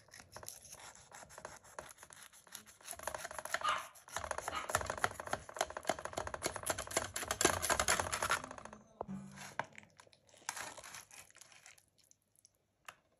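A utensil cutting through a baked lasagna's crusty top and scraping and crinkling against its aluminium foil tray: a dense run of scratchy, crunching strokes, loudest in the middle, then a short second burst as a portion is lifted, and a single click near the end.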